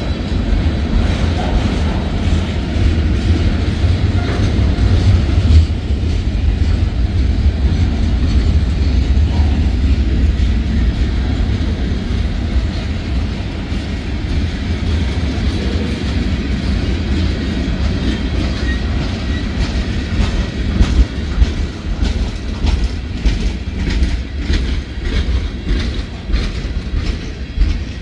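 Freight train cars, tank cars and boxcars, rolling past with a steady low rumble and clickety-clack of steel wheels over the rail joints. The clacks grow sharper and more spaced near the end as the last cars go by.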